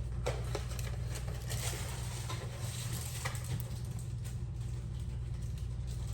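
Light kitchen handling noises: a few soft taps and clicks scattered over a steady low hum and faint hiss.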